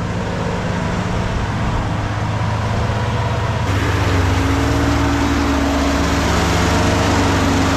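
Skid steer engine running hard as the machine drives along the road, a steady drone that gets louder and brighter about a third of the way in as the throttle opens up.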